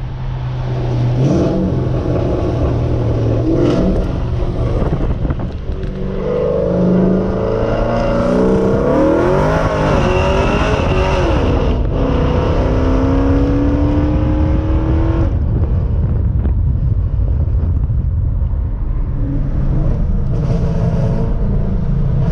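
Car engine and road noise heard from inside a moving car. From about six seconds in the engine revs up and down, with a break near twelve seconds, then settles back to a steady cruise after about fifteen seconds.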